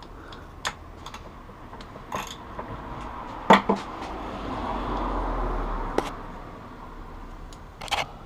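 Small metal engine parts and hand tools clicking and knocking as they are worked by hand on an engine case, about seven sharp clicks in all, with a soft swelling rustle of handling in the middle.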